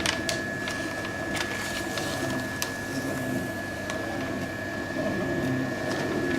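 Continuous band sealer with nitrogen flushing running: a steady motor hum with a constant high whine and scattered light clicks, as a foil bag is put through to test it.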